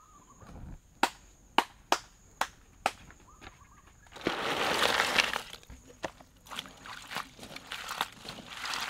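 Charcoal fire in a metal brazier flaring up: a few sharp pops, then a whoosh of flame lasting about a second, followed by scattered crackling. Near the end, water sloshing as crabs are washed by hand in a bowl.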